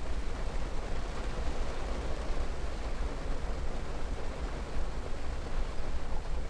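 Steady rain, a dense even hiss with a deep rumble underneath.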